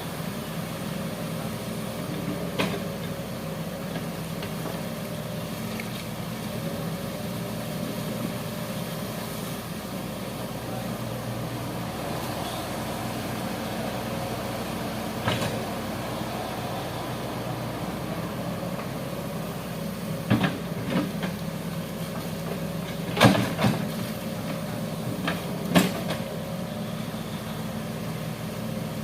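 Hitachi hydraulic excavator's diesel engine running steadily while digging a ditch, with several short sharp knocks, a cluster of them close together in the last third.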